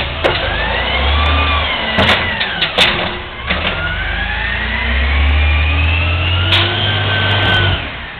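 Automated side loader garbage truck working a cart: the engine revs with a rising and falling hydraulic whine as the arm lifts and dumps the cart, and there are two sharp bangs about two and three seconds in. The engine then revs up again with a long rising whine as the truck pulls ahead, and drops off near the end.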